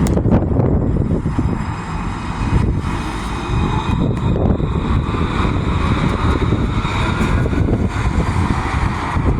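Road traffic running past, a steady low rumble with wind on the microphone, and a faint whine that rises slowly in pitch about five seconds in.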